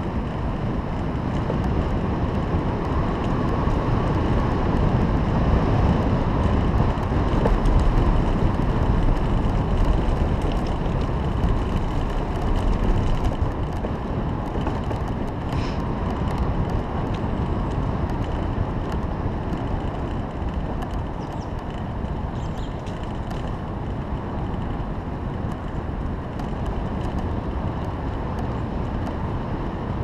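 Wind rushing over the microphone of a moving bicycle, with the tyres rolling on a paved asphalt trail underneath; it is gustiest about a third of the way through.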